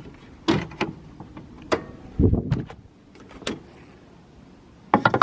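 Clicks and knocks of someone handling things around a car, with a heavier thump a little past two seconds in and a quick cluster of sharp clicks near the end.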